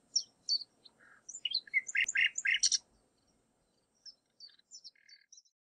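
Small birds chirping, with a quick run of repeated notes about two seconds in and fainter short chirps near the end.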